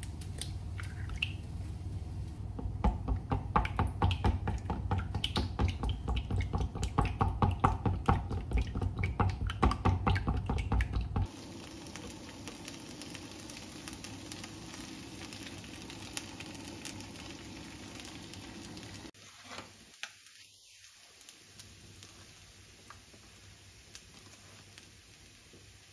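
Eggs being beaten in a bowl, a fast run of clicking strokes for several seconds. Then, after an abrupt change, the quieter steady sizzle of fried rice cooking in a frying pan.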